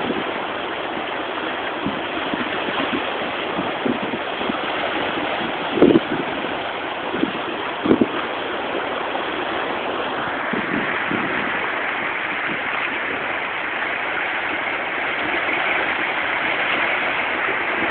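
Steady rushing of sea water, with two brief low knocks about six and eight seconds in. The rush grows brighter and hissier just after the halfway point.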